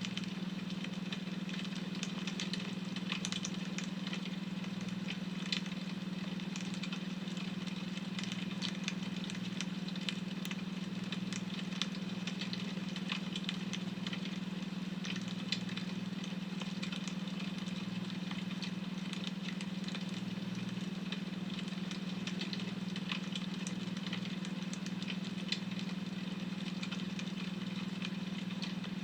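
Wood fire crackling with irregular small pops and snaps over a steady low hum, the beta-wave tone of a study soundtrack.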